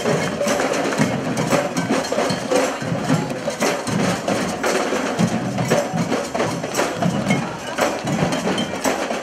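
A street parade band playing, heavy on drums and percussion, with many quick hits.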